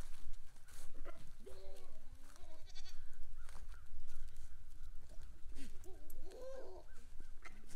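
A goat bleating up close: a short bleat about a second and a half in, then a longer bleat that rises and falls in pitch near the end.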